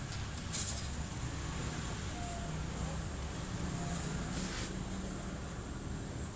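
A faint voice over a steady background of noise and hiss, with a brief noise burst about half a second in.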